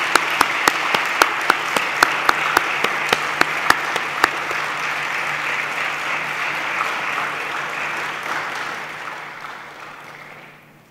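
A crowd applauding under a large tent, with sharp, evenly spaced claps standing out at about three or four a second for the first four seconds; the applause fades away near the end.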